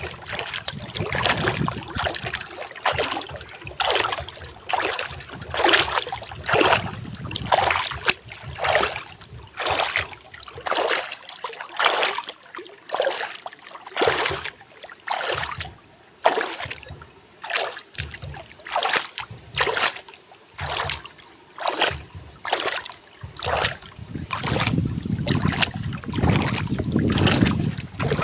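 Water lapping and splashing in short, quick strokes, a little more than one a second. A low rumble underlies it at the start and swells again near the end.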